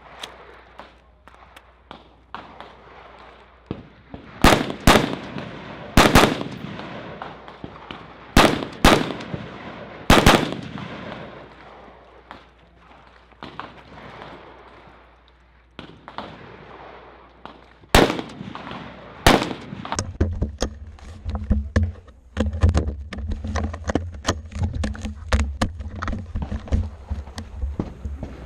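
AR-15 rifle shots: six loud, sharp cracks in pairs and singles, a pause, then two more. After that comes a quick run of many shots over a steady low rumble.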